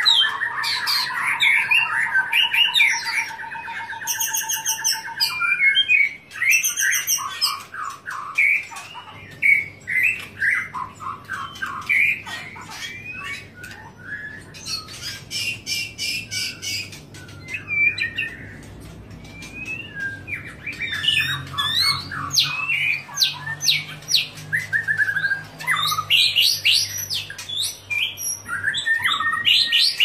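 White-rumped shama (murai batu) singing a long, varied song: a rapid trill to open, then whistled notes, slurred phrases and several bursts of very fast, high chattering notes.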